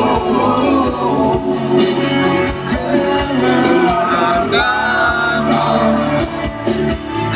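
Live band playing rock music with guitar and singing, loud and continuous.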